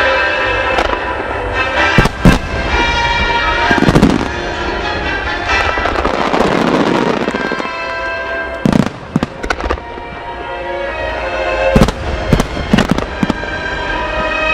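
Aerial fireworks shells bursting: sharp bangs in clusters about two seconds in, around four seconds, about two-thirds of the way through and again near the end, over continuous music.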